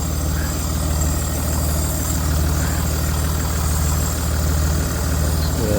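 L494 Range Rover Sport idling, with a steady low engine hum and a whirring hiss from underneath the car, around the catalytic converters on the left-hand side. The owner has no idea what causes it.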